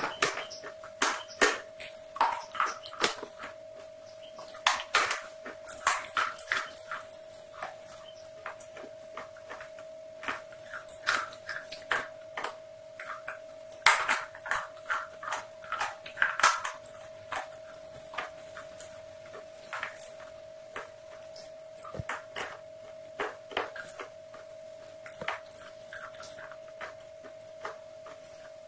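Close-miked chewing and crunching of fried chicken with the microphone held at the lips: irregular crisp crackles and mouth clicks, densest in the first half, over a steady faint hum.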